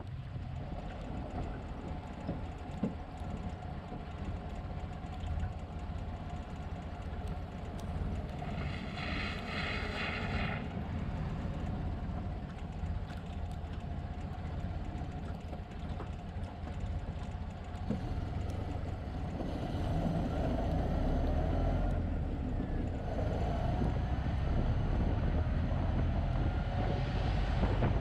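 Inside the cab of a 1929 Ford Model A pickup on the move: the four-cylinder engine and drivetrain are running with a steady low rumble, mixed with wind and road noise. It grows louder in the second half, with a rising whine near the end. A brief pulsing high sound comes about nine seconds in.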